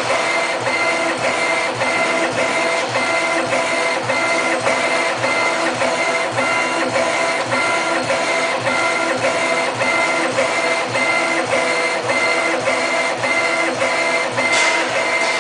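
CO2 laser engraver raster-engraving: the gantry's stepper motors whine in steady tones as the laser head sweeps rapidly back and forth, with a regular tick at each reversal, about two to three a second.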